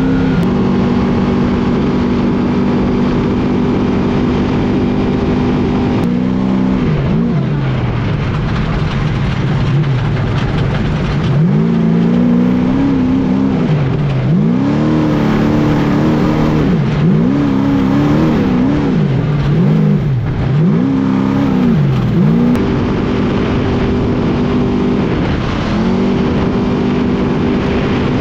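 Trophy truck's engine running hard at high revs, dropping about six seconds in. It rises and falls about five times in quick succession in the middle, then holds high revs again near the end, over a steady rush of noise.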